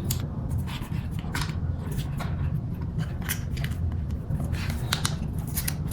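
Adhesive tape being worked loose by hand, with irregular sharp clicks and crinkles, over a steady low hum.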